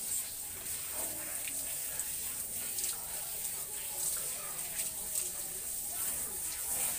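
Water spraying from a garden hose onto a wet dog's coat and splashing on a tiled floor, a steady hiss.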